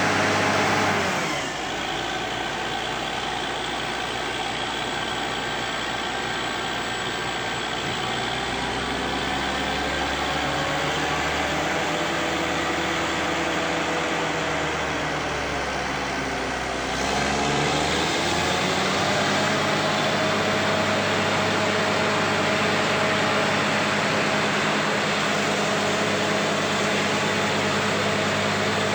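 Engine of a truck-mounted water well drilling rig running steadily. About a second and a half in it drops to a lower, quieter speed. Its pitch wanders down and up in the middle, then it picks up again about 17 seconds in and runs on steadily.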